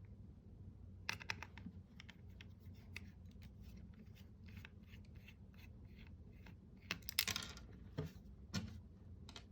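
Scattered small clicks and taps of a computer mouse's plastic parts being handled and worked on, with a longer scraping rasp a little past two-thirds through and a few sharper knocks near the end.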